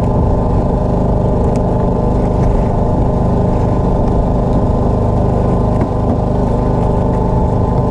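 Engine aboard a small outrigger fishing boat running steadily, a loud, even drone that holds the same pitch throughout.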